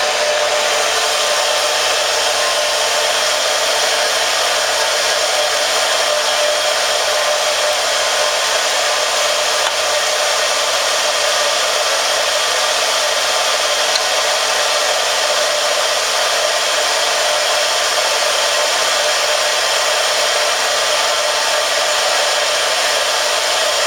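Monarch Series 62 engine lathe running, a loud steady whir with several steady gear tones that holds unchanged throughout.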